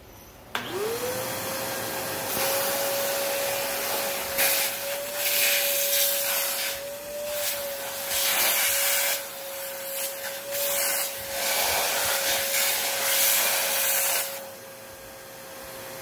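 Fujihama wet-and-dry vacuum cleaner switching on about half a second in, its motor spinning up to a steady whine. The hose nozzle sucks water out of a glass dish, the rush of air and water swelling loud several times, then dropping away near the end while the motor keeps running.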